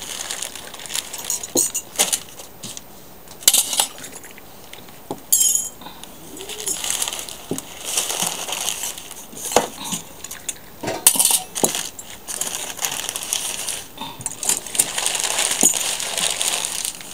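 Scattered clinks and knocks of tea glasses, saucers and a metal teapot being handled as tea is served, some with a short ring.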